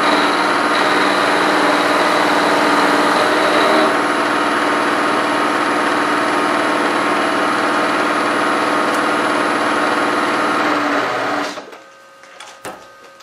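Milling machine running with an end mill cutting a shallow step in a steel part, a steady machine sound with a constant hum and whine. About eleven and a half seconds in the machine is switched off and goes quiet, leaving a few faint ticks and a click.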